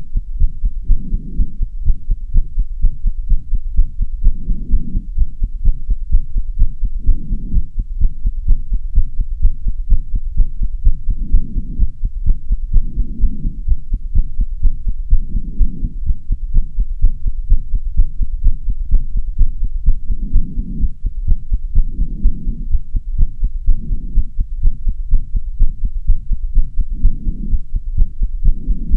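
A human heartbeat, fast and regular, beating hard after long exercise, with slower swells of heavy breathing under the beats.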